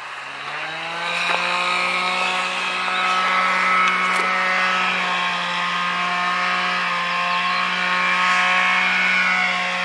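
A small engine running steadily at high speed, its pitch rising over the first second and then holding with a slight dip near the end.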